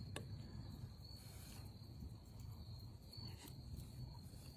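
Crickets chirring in a steady high trill over a low rumble, with a couple of faint clicks.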